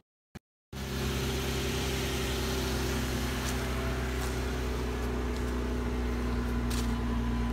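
2020 Jeep Wrangler Sport's engine idling steadily. The sound cuts in after a brief silent gap at the start.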